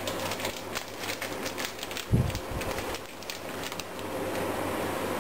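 Plastic bag crinkling and crackling as it is handled at the jaw of a foot-pedal impulse bag sealer, with one dull thump about two seconds in, over a steady low hum.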